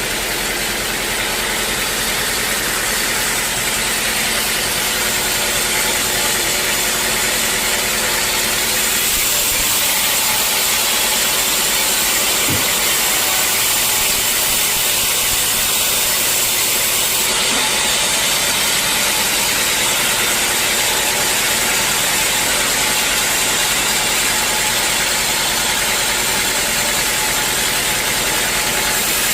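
Sawmill machinery running steadily, a loud even hiss-like noise with small shifts in its upper range partway through.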